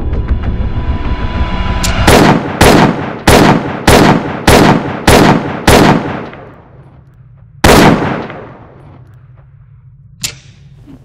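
Gunshot sound effects: seven shots fired about two-thirds of a second apart, then a single shot about two seconds later, each ringing out briefly. A small metallic clink follows near the end.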